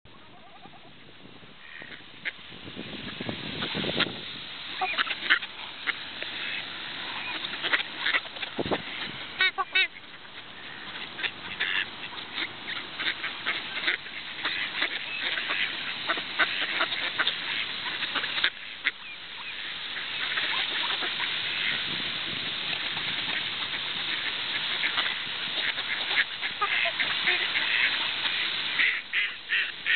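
A flock of ducks and other park waterfowl calling close by: a dense, continuous run of short quacking calls, getting louder over the first few seconds and again around twenty seconds in.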